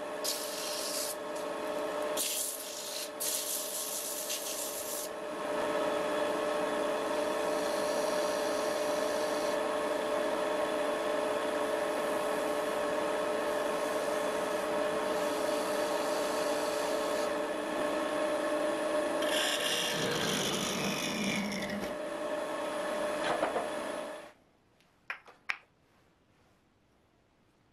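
Wood lathe running while the spinning wooden pot maker is hand-sanded with sandpaper: a rubbing hiss, in separate strokes at first and then continuous, over the lathe's steady hum. The lathe is switched off near the end, and a couple of faint clicks follow.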